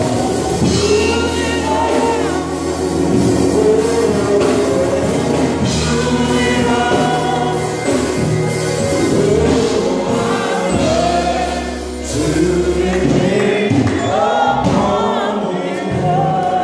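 Gospel music: several voices singing together over held low accompanying notes.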